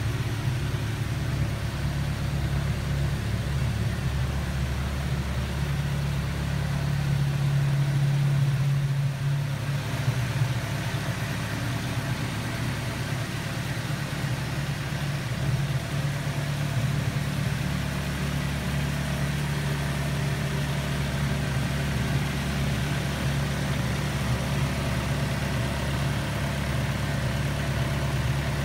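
Morgan Plus 4's four-cylinder engine idling steadily, an even low hum.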